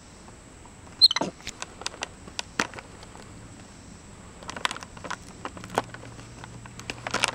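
Crinkling and crackling of a resealable plastic snack bag as a capuchin monkey grips and picks at its top, in scattered sharp crackles, with a short falling squeak about a second in.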